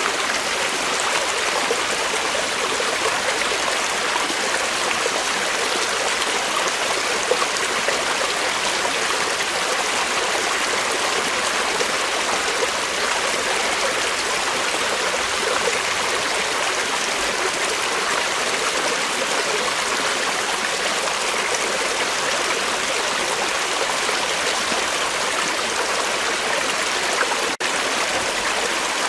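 Creek water flowing and rippling in a steady, even rush, with one split-second dropout near the end.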